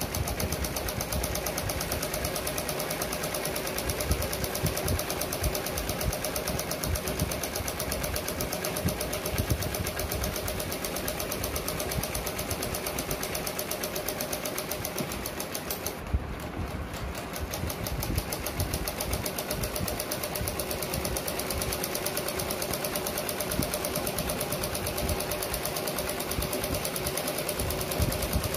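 Usha sewing machine stitching fabric: a fast, steady mechanical clatter of the needle running, easing briefly about 16 seconds in before carrying on.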